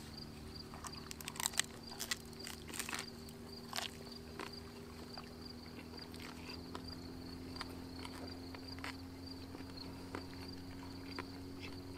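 A person chewing a bite of fish taco in corn tortillas. There is a run of crunchy, smacking chews in the first few seconds, then quieter chewing. A steady pulsing insect trill and a faint low hum run underneath.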